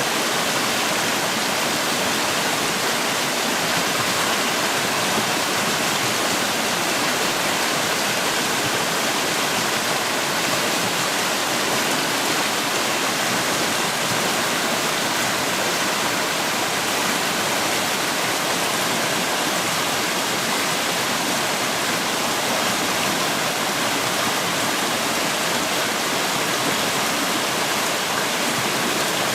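Creek water rushing, a steady unbroken hiss.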